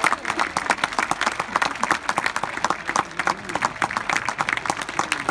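Spectators applauding: many hands clapping at once, irregular and sustained.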